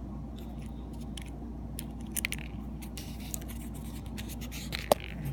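Small scattered clicks and scrapes of a precision screwdriver working the tiny screws over an iPhone 5's LCD connectors, with one sharp metallic tick near the end, over a steady low hum.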